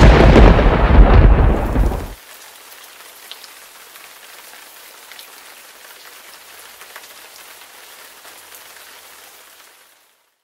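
Thunderclap from a very close lightning strike: a loud, deep crash that breaks off suddenly about two seconds in. It is followed by a quiet steady hiss of rain with scattered small ticks, which stops near the end.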